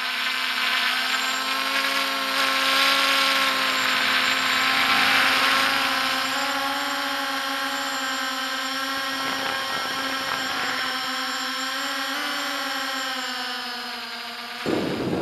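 MJX Bugs 3 quadcopter's brushless motors and propellers running in flight, a steady whine that drifts slightly in pitch as the throttle changes, heard through the drone's own onboard camera. It cuts off abruptly near the end, and loud wind buffeting follows.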